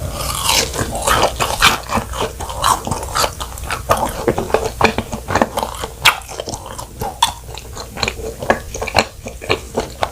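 Close-miked eating of fried cheese balls: biting and chewing with a dense run of sharp, wet mouth clicks and smacks.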